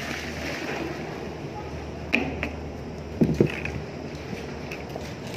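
Plastic paint buckets being handled: paint pouring from one bucket into another at the start, then a few sharp knocks and two loud low thumps of the buckets a little after three seconds in.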